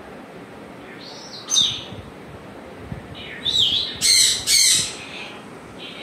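African grey parrot calling: a couple of short high whistles about a second in, then a wavering whistle followed by two loud, harsh squawks a little past the middle.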